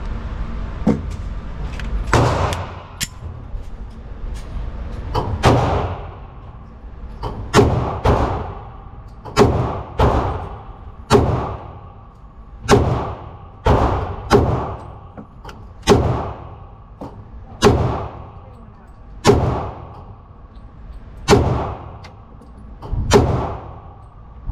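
Gunshots at a shooting range: a steady string of more than a dozen shots, about one every one and a half to two seconds, each with a short ringing tail.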